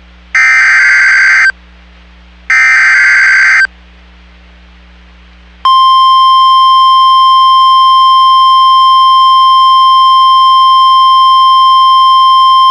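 Emergency Alert System SAME header data bursts, two short buzzing bursts a second apart, followed after a pause by the steady 1050 Hz NOAA Weather Radio alert tone. These mark the start of a new severe thunderstorm warning broadcast.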